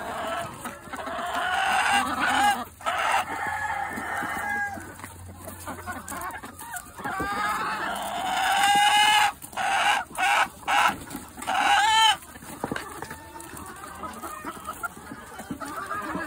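A flock of chickens clucking and calling, with loud rooster calls from about eight to twelve seconds in that end in a crow.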